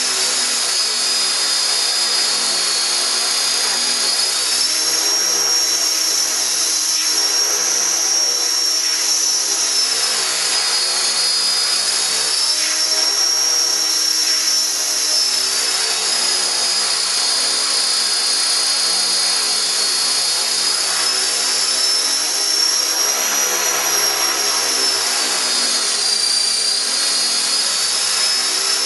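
Align T-REX 500 electric RC helicopter running up for the first time: a high whine from the motor and gears over the whoosh of the spinning rotor blades. The pitch drifts slowly up and down several times as the rotor speed wavers.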